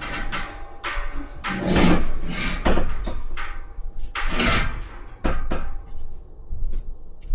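Household objects being handled and moved: an irregular series of knocks and clunks with a few longer scraping sweeps, the loudest about two and four and a half seconds in.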